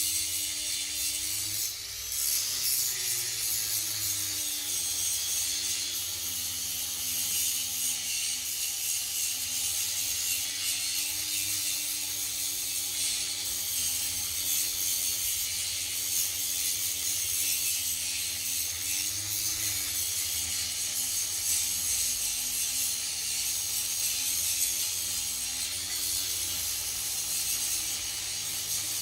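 A motor-driven shop tool running with a steady scraping hiss over its motor hum. The hum's pitch briefly rises and falls a few times.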